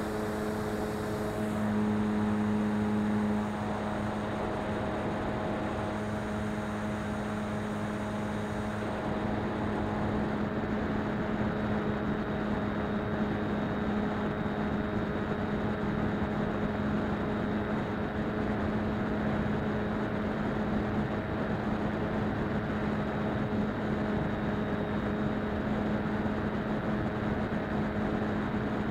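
Motor and propeller of a SkyClimber FPV model plane running in flight: a steady hum over an even wash of wind noise. Some of the higher overtones drop out about three and a half seconds in and again about nine seconds in.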